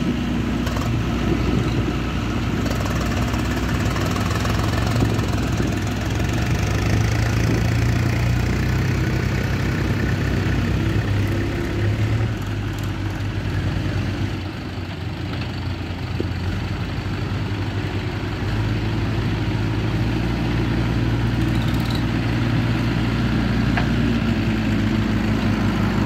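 Diesel engines of a JCB backhoe loader and Swaraj and Mahindra farm tractors running, a steady low engine drone that dips briefly about halfway through.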